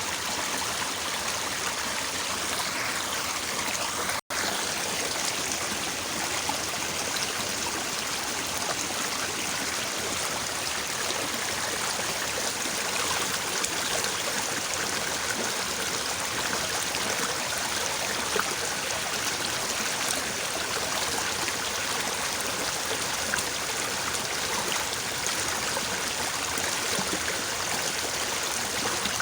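Small, fairly fast-flowing stream babbling steadily, with a momentary dropout about four seconds in.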